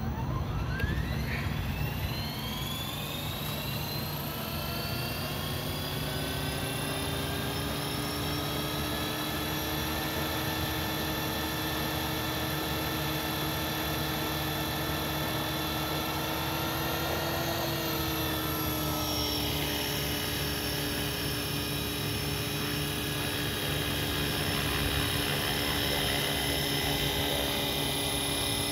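Scale RC helicopter spooling up: the motor-and-rotor whine rises steadily over the first several seconds, then holds at a steady pitch. Around two-thirds of the way through, the pitch shifts briefly as the throttle changes, and the helicopter is lifting off into a low hover by the end.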